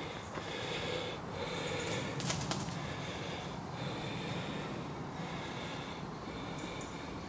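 A person puffing and breathing hard close to the microphone, with a new breath about every second. There are a few sharp clicks about two and a half seconds in.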